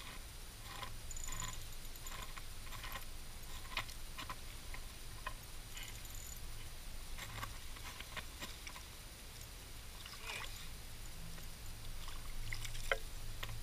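Scattered faint clicks and taps from an ice-fishing rod and reel being handled, over a low steady rumble.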